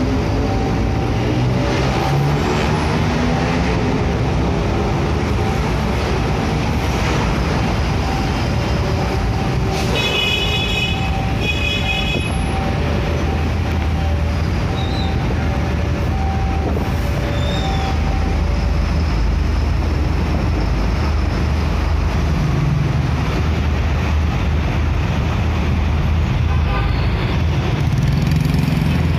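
Heavy road traffic at a railway level crossing: truck and motorcycle engines running as vehicles move off across the tracks. The crossing's two-tone warning bell keeps ringing over it and stops about two-thirds of the way through, and a vehicle horn sounds twice in short blasts near the middle.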